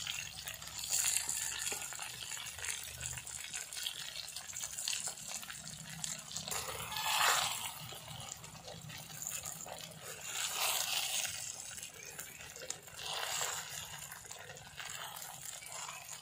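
Stuffed brinjals sizzling in hot oil in a clay pot, with a spatula stirring and scraping through the masala in several louder bursts.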